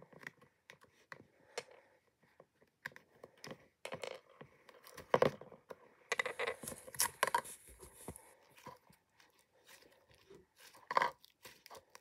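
Thick pink slime being poked, squeezed and stretched by hand, giving scattered small clicks and crackles, densest about six to eight seconds in. Near the start a few light clicks come from plastic charms being picked off the slime.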